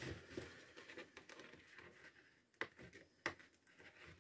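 Faint rustling of a paper sticker sheet being handled, with two sharp ticks in the second half.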